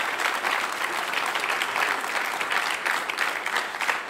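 A crowd applauding, many hands clapping at once in a dense, steady patter.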